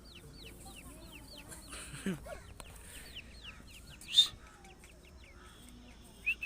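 Grey francolin calling: a run of short, high, downward-sliding notes, about three a second, with one louder sharp note about four seconds in.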